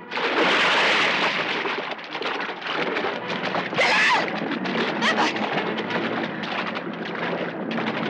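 A man diving headfirst into the sea with a loud splash, then churning, splashing water. About four seconds in, a woman's short scream.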